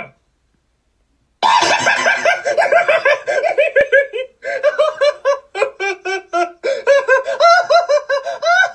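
High-pitched laughing in rapid, repeated ha-ha bursts, starting about a second and a half in and going on without a break.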